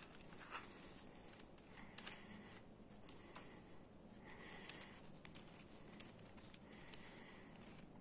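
Faint scattered clicks and short rubbing scrapes from 3D-printed plastic gears and linkages being turned and flexed by hand, working stiff joints loose so they move freely.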